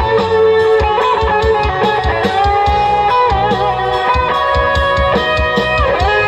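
Live rock band playing an instrumental passage: an electric guitar melody with bent notes over bass guitar and a steady drum beat, through a stage PA.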